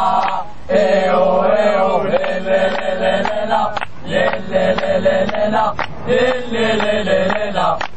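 Football ultras chant sung by many male voices in unison, with no drums or other instruments: a wordless sung refrain in phrases of about two seconds, each followed by a short pause.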